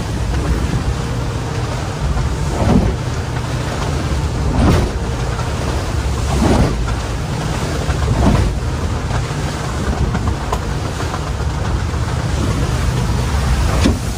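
Motor yacht pounding through heavy seas: a steady low rumble of engine and wind, with the hull slamming and splashing into waves every two seconds or so.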